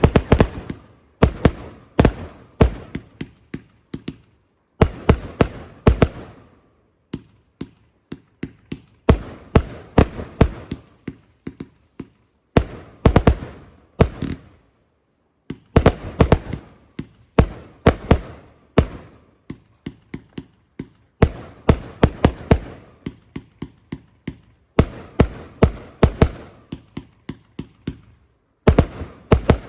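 Fireworks bursting in rapid volleys of loud bangs, clusters of several reports every second or two, each followed by an echoing rumble.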